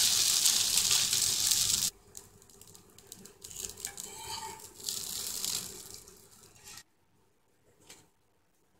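Dosa batter sizzling on a hot tawa as oil is brushed over it, a loud steady hiss that cuts off abruptly about two seconds in. Then quieter sizzling and a metal spatula scraping under the dosa, dying away about seven seconds in.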